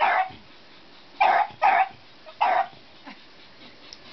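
A beagle barking four times in short, sharp barks, two of them close together, at a toy train circling nearby.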